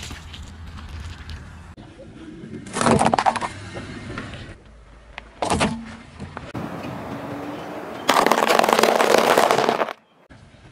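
A car tyre rolling over objects and crushing them on asphalt, several separate crushes one after another: a loud crunch about three seconds in, a short sharp crack a little later, and near the end the loudest, a dense crunching of dry crumbly food lasting about two seconds.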